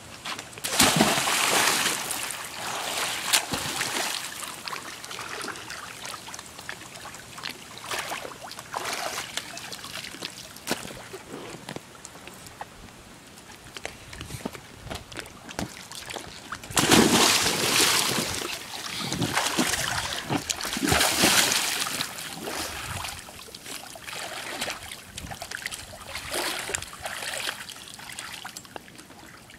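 Splashes of a child jumping from the ladder of an above-ground pool into the water: one big splash about a second in and another a little past halfway, each followed by sloshing and trickling water.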